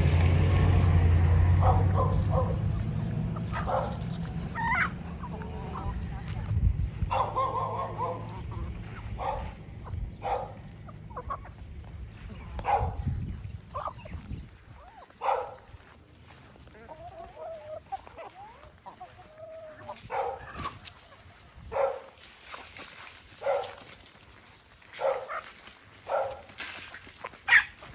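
Backyard chickens clucking: short single clucks every second or two, with a short run of wavering calls about two-thirds of the way through. A low rumble sits under the first half and stops about halfway.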